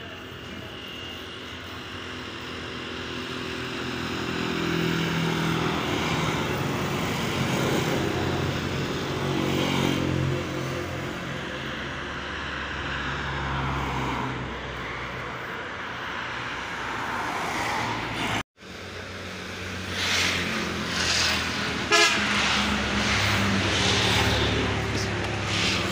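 Road traffic, with a motor vehicle's engine running close by and growing louder over the first few seconds. The sound drops out completely for an instant about two-thirds of the way through, and then the traffic noise carries on with a few sharp clicks.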